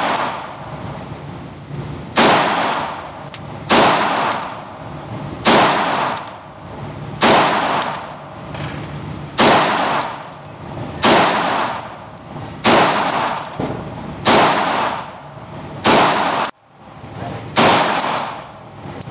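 HK VP9-B 9mm pistol fired at a slow, steady pace, about ten shots roughly every one and a half to two seconds. Each shot echoes in an indoor range.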